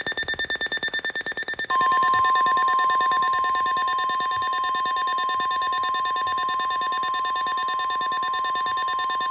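Emergency Alert System alert tones: a loud, rapidly pulsing buzzy alarm tone, joined about 1.7 s in by a steady pure tone just above 1 kHz, signalling an incoming weather warning.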